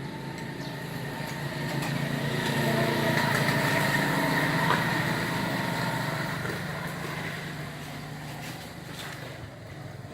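A motor vehicle passing by: its engine hum rises to its loudest about four seconds in, then fades away.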